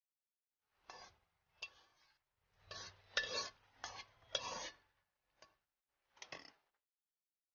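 Spatula scraping and clinking against a wok as cooked greens are pushed out onto a plate: a series of short scrapes, busiest from about two and a half to five seconds in.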